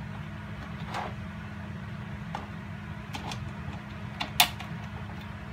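Clear plastic food dehydrator trays being stacked and seated onto the base: a few light plastic clicks and knocks, the sharpest about four seconds in, over a steady low hum.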